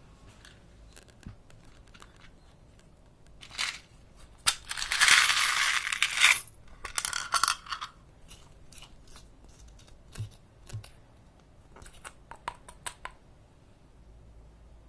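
Handling noises: a burst of crackling and rattling about four to eight seconds in, followed by scattered sharp clicks.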